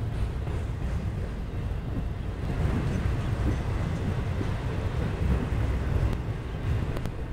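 Double-stack intermodal freight train's container-laden well cars rolling past on the rails: a steady low rumble and rush of wheels on track, with a couple of faint clicks near the end.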